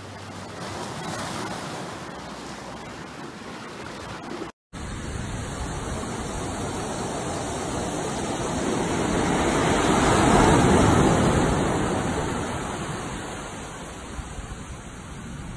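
Sea waves breaking and washing among shore rocks. After a brief dropout about four and a half seconds in, surf washes up a sand beach, swelling to its loudest partway through and then receding.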